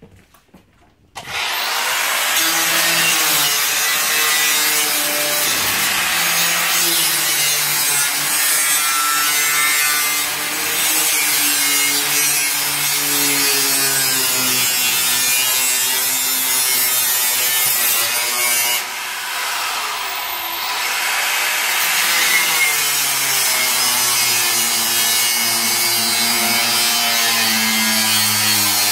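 Angle grinder cutting through a school bus's sheet-steel side panel. It starts about a second in and runs on as a loud, continuous grinding, with the motor's hum wavering in pitch as the disc bites into the metal and easing briefly past the middle.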